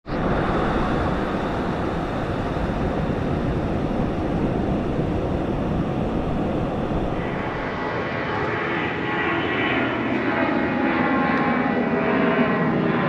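Jet engines of a Boeing 757-200 climbing out after takeoff, a steady loud rush of noise, with higher steady tones joining in about halfway through as the jet passes overhead.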